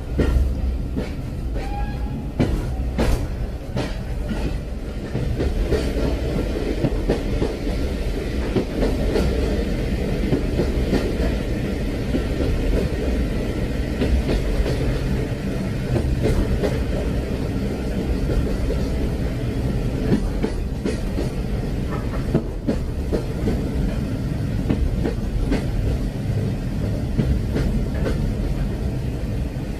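Train running along the rails: a steady rumble with the clickety-clack of wheels over the track, the sharpest clacks in the first few seconds.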